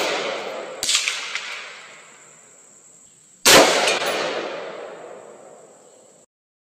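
Battle sound effect of sudden shots or blasts, each ringing out in a long echoing tail: the decay of one blast is fading at the start, a sharp shot comes about a second in, and a louder blast hits about three and a half seconds in and dies away over nearly three seconds.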